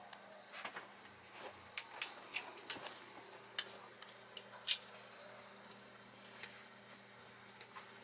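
A dozen or so irregular sharp clicks and taps, the loudest about halfway through, over a faint steady electrical hum on a workbench.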